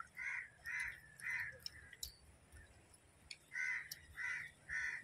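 Crow cawing: three harsh caws about half a second apart, then after a pause of about two seconds three more.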